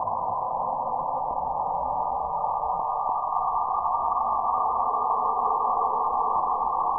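Radio receiver giving a steady, even hiss with no high end, cut off sharply above, and a faint steady tone underneath. It is the strange sound that the recordist, tuning across the bands, takes for a sound from space.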